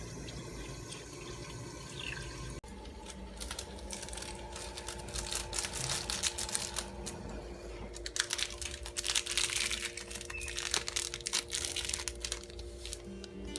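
Water being handled in a pot for boiling gelatin: liquid sounds with dense, irregular crackling and clicking that grows busiest past the middle.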